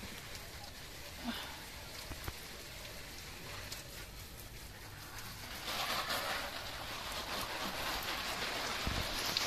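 Water spraying and pattering onto broad leafy plants like rain, starting about halfway through and running on. Before it, only a few faint clicks as weeds are pulled from the soil of a pot by hand.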